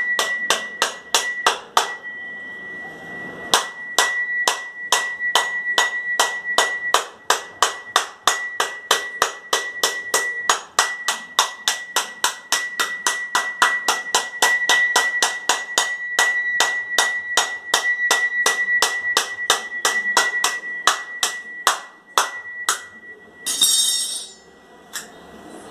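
A dry coconut held in the hand is struck over and over with a knife, about three sharp knocks a second with a short pause about two seconds in. The steady tapping is meant to crack the shell around its middle.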